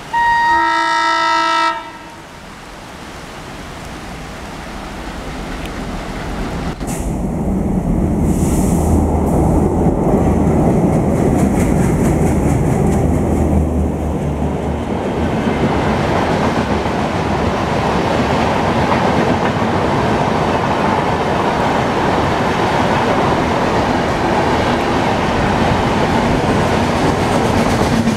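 An Indian Railways diesel locomotive's air horn blows once, a loud chord lasting under two seconds, followed by the rumble of diesel-hauled express trains passing close by: a low engine drone with coaches rolling over the rails, then a steady rush of coaches and wheels clattering on the track.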